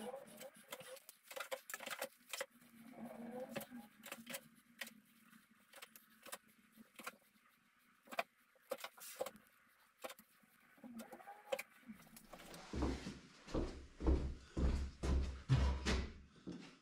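Caulking gun laying a bead of adhesive on a wooden board, its trigger clicking and knocking again and again. Near the end comes a run of louder, deeper thumps and knocks as a long wooden board is handled against a plasterboard wall.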